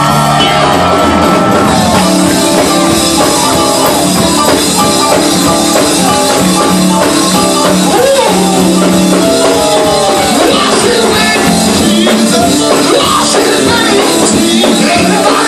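Loud live church band music for a praise break, with voices singing and shouting over it.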